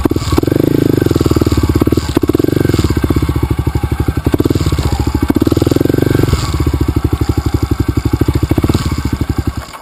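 Dirt bike engine running, with the throttle opened and eased off several times so the sound swells and falls back. The engine sound cuts off suddenly near the end.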